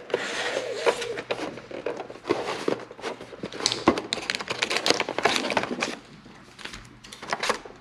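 Foil trading-card booster packs crinkling and rustling, with light clicks and knocks from the plastic display tray as the packs are handled and lifted out. It quietens about six seconds in, leaving a few scattered clicks.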